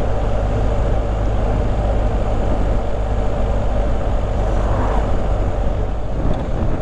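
BMW R1250GS motorcycle's boxer-twin engine running at steady road speed, a constant low drone under steady wind rush.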